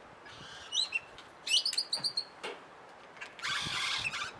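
Birds chirping in short bursts of gliding notes, the loudest run about one and a half seconds in, then a rasping rustle that lasts about a second.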